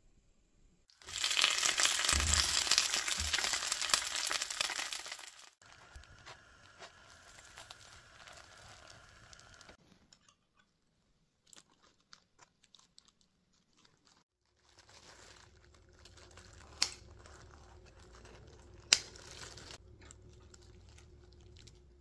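Disposable plastic glove crinkling and rustling loudly for about four seconds as it is handled. After that, quieter scraping as a table knife spreads tangerine jam on toast, with two sharp clicks about two seconds apart near the end.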